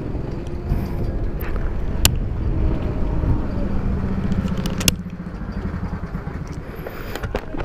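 Go-kart engines running with a steady low drone, an engine note standing out for a second or two about halfway through. Two sharp metallic clicks come from a steel gate being handled.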